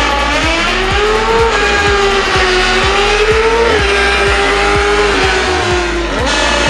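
Formula Student race car engine revving, its pitch rising and falling and dropping sharply about two-thirds of the way through, over background music with a steady beat.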